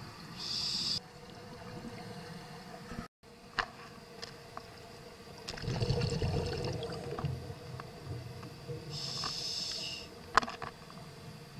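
Scuba breathing heard underwater through the camera housing. A short hiss of the regulator on an inhale comes near the start and again near the end, with a low bubbling rumble of exhaled air in the middle. Small clicks and knocks come and go.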